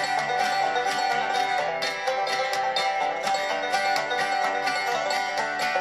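Banjo picking an instrumental break in a bluegrass-style country song, a quick, steady run of plucked notes with no singing.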